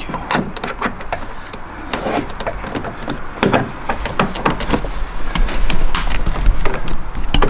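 Scattered plastic clicks and knocks as a coolant expansion tank is handled and pressed into place in a car's engine bay, with a low rumble building over the last few seconds.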